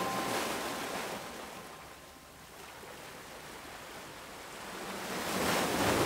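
Ocean surf washing in and drawing back: a wave ebbs away after the first second and the next one builds to a surge near the end. The last tones of a wind chime die away at the very start.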